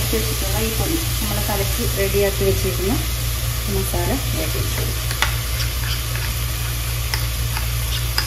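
Onion, tomato and green chilli frying in oil in a clay pot, with a steady sizzle. A spoon scrapes and clicks a few times as masala paste is scooped from a bowl into the pot.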